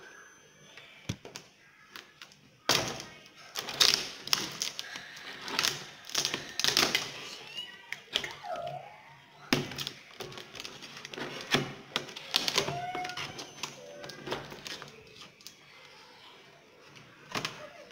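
Knife blade cutting and scraping through packing tape on a cardboard box, with irregular scratches, taps and knocks against the cardboard.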